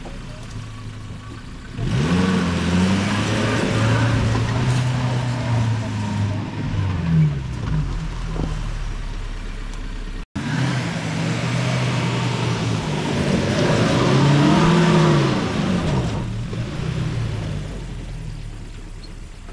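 Maruti Gypsy 4x4's petrol engine labouring off-road, revved hard with its pitch rising and falling as it climbs a loose dirt slope. The sound breaks off suddenly about ten seconds in. Then comes a second spell of hard revving, which eases off near the end.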